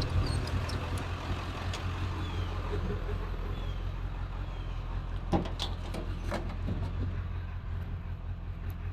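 Pickup truck engine running steadily at a low hum, with a couple of sharp knocks about five and six seconds in.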